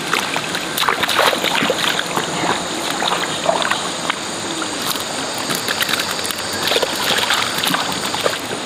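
Shallow muddy water splashing and sloshing in irregular bursts as hands and a long-handled hand net move through it and a catch is scooped out, over a steady high-pitched buzz.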